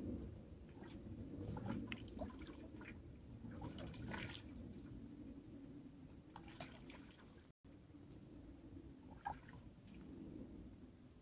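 Faint splashing and dripping of water in a metal bucket as hands scoop water to wash, in scattered small splashes and drips.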